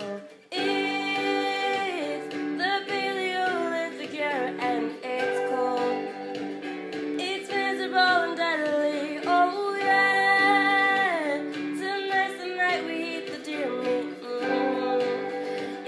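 Background song, a voice singing a melody over guitar, coming in about half a second in.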